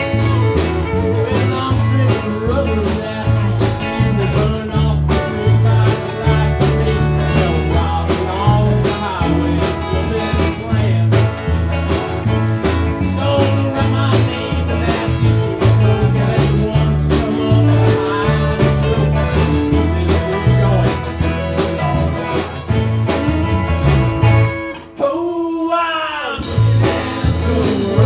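A live country band playing, with a bass line, drums and guitar. About three-quarters of the way through, the band stops for about two seconds while a lone guitar plays a short phrase of bending notes, then the band comes back in.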